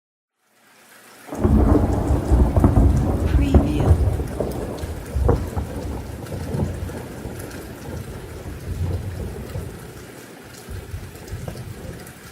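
Thunderstorm: after a brief silence, steady rain sets in and a deep rolling thunder rumble breaks about a second in, loudest over the next few seconds with sharp crackling peaks, then slowly rolling away under the continuing rain.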